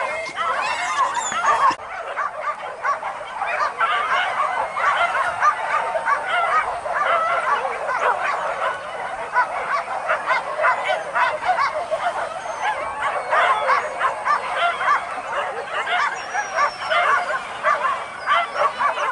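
A pack of hunting dogs barking and yelping all at once, many voices overlapping without a break, the sound of dogs giving tongue on a wild boar hunt.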